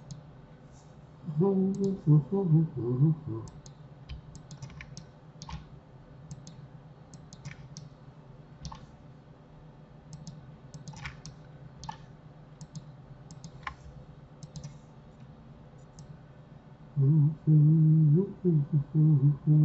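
Scattered sharp clicks of a computer mouse and keyboard at irregular intervals, over a faint steady hum. A man's voice, wordless and humming, comes in briefly near the start and again near the end.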